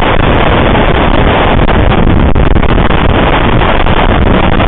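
Typhoon-force wind blasting over the microphone: a loud, steady rush of noise with heavy low buffeting and crackle.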